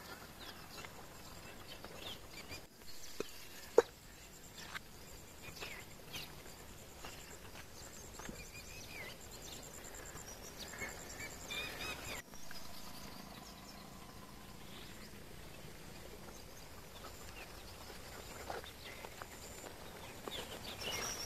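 Faint outdoor ambience with birds chirping and calling, some in short rapid trills. There is a single sharp click about four seconds in, and a faint low steady hum in the second half.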